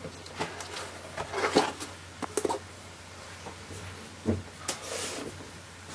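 Handling noise from a book and paper being moved: a run of soft knocks and paper rustles over the first two and a half seconds, then another knock and rustle about four to five seconds in.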